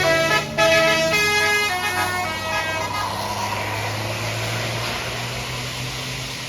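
A bus's basuri musical horn plays a quick multi-note telolet tune for about three seconds. The bus's engine and tyre noise carry on after the tune stops and slowly fade as it passes.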